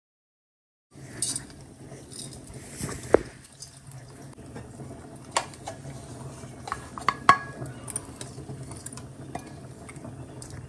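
Metal spoon clinking and scraping against a stainless steel bowl of coarsely ground sesame seeds, starting about a second in with scattered sharp clinks over a low steady hum.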